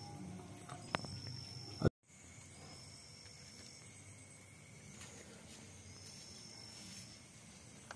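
Insects trilling in the background in repeated high, steady bursts about a second long. A sharp click comes about two seconds in, followed by a moment of dead silence.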